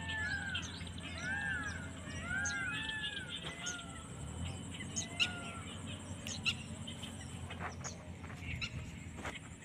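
Birds calling: a quick run of short arched notes, each rising then falling in pitch, over the first few seconds, fading out by about the middle. Scattered sharp clicks follow in the second half.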